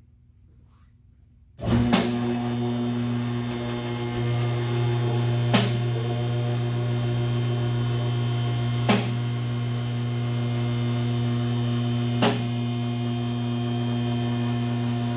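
A two-post car lift's electric hydraulic pump starts about a second and a half in and runs with a steady hum as it raises the truck. A sharp click comes about every three and a half seconds, four times, as the lift's safety latches drop past each catch.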